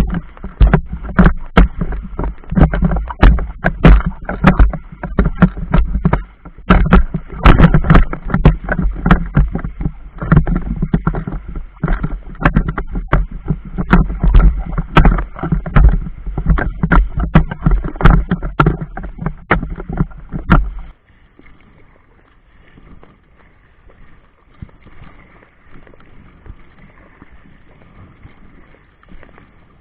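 Small boat moving over choppy river water, its hull knocking and slapping on the waves with a heavy low rumble. About two-thirds of the way in, the sound drops suddenly to a faint wash.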